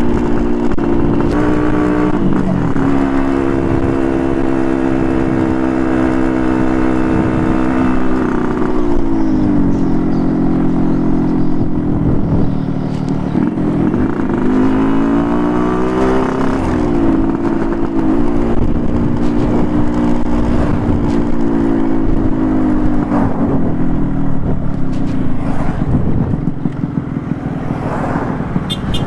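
Yamaha RX King two-stroke motorcycle engine running under the rider at cruising speed. The engine note holds steady, drops as the throttle is eased a third of the way in, then dips and climbs again around halfway before settling.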